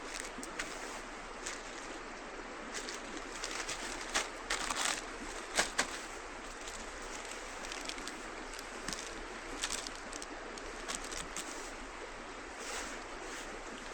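Steady rush of flowing river water, with scattered sharp clicks and knocks that bunch together around the middle.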